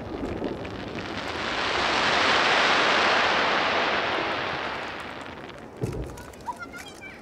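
A crowd applauding: the clapping swells and then dies away over a few seconds after a giant two-shaku firework shell bursts. Near the end there is a single dull thump as the next shell is launched.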